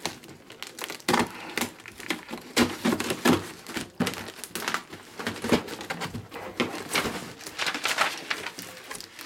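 A shipping package being opened by hand: the packaging crinkles and rustles in irregular crackles, with a few louder handling knocks.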